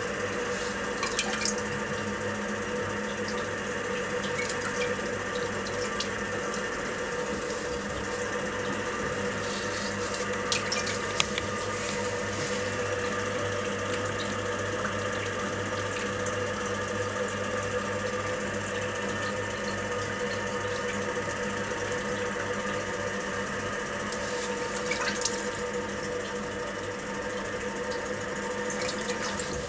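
Potter's wheel running with a steady hum while wet hands squeeze and pull spinning clay, a continuous watery rubbing as the wall of a pot is drawn up. A few small clicks about ten seconds in and again near the end.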